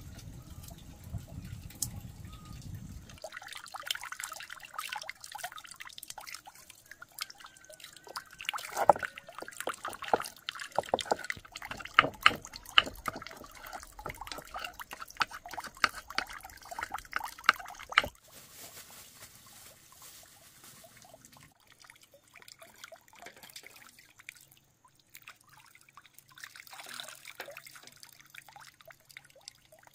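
Chopsticks stirring and tapping rice in an aluminium pot, a long run of sharp clinks. Near the end, water trickling from a bamboo pipe into a basin as hands are rinsed under it.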